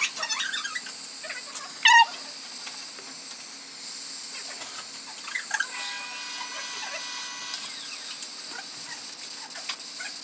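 Gas soldering torch flame hissing steadily while it heats a brass part for silver soldering. A brief sharp sound, the loudest moment, comes about two seconds in.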